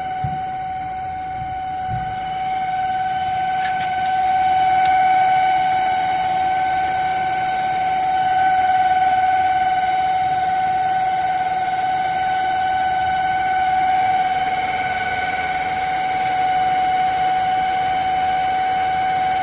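Steady high-pitched whine from a Hyundai Elantra, the abnormal noise being checked. It holds one pitch throughout while slowly growing louder and softer.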